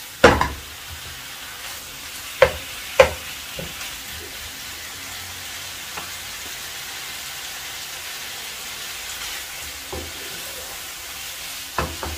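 Chicken and vegetables sizzling steadily in a nonstick wok on a gas flame, stir-fried for a final minute so the vegetables stay crunchy. A few sharp knocks of the pan and wooden spatula come just after the start, twice around two to three seconds in, and faintly near the end.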